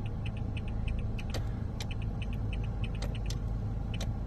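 2017 Toyota Corolla turn-signal relay ticking rapidly, several ticks a second, with the right indicator on. The fast rate is the hyperflash that shows a burnt-out front turn-signal bulb on that side. A steady low hum runs underneath.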